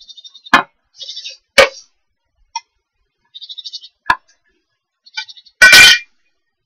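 Sharp knocks and clicks of tools and materials being handled and set down, four in all, the last a louder clatter with a brief ring. Short bursts of rapid, high chirping come between them.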